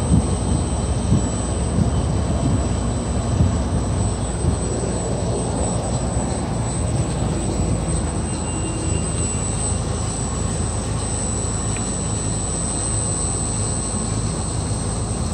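Chigo VRF outdoor air-conditioning units running: a steady mechanical drone with a low hum and a thin, high-pitched steady tone. The units are running normally with their E0/E2 outdoor error cleared.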